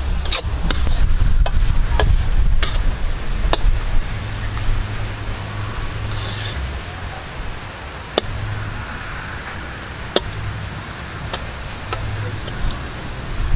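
Metal spatula scraping and clinking against a metal wok while minced pork, shrimp and shredded carrot are stir-fried, the strokes thickest in the first few seconds and then more spaced out, ending with the food scraped off onto a plate. A steady low rumble lies underneath.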